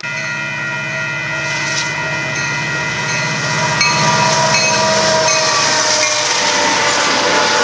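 Union Pacific diesel locomotive's air horn blowing one long chord, several notes held together, over the low throb of the diesel engines. It gets louder about four seconds in and then fades. The rushing noise of the locomotives and train going by takes over.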